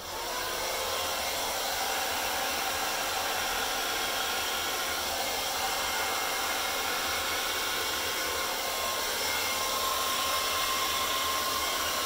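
Handheld hair dryer switching on and running steadily: a constant rush of blown air with a faint motor whine.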